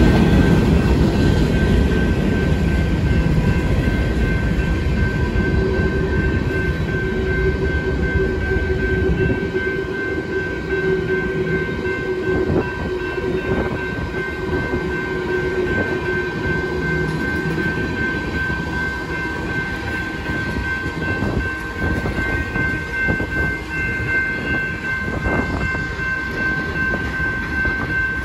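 Freight train cars rolling past at a grade crossing: a heavy low rumble with wheels clacking over the rails, under the steady ringing of the crossing signal's bell. The rumble is loudest at first and eases after about ten seconds.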